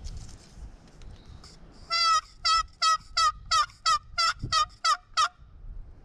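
Wooden turkey box call worked in a series of about ten yelps, roughly three a second, each note breaking from a higher to a lower pitch: an imitation of a hen turkey's yelp, made to bring in a gobbler.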